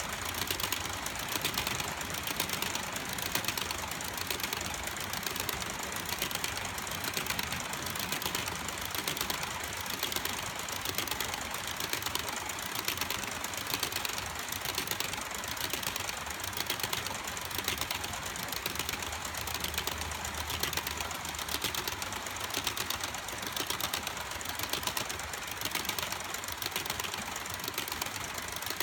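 A long string of HO scale model covered hopper cars rolling past on the track, their wheels making a fast, even clicking clatter.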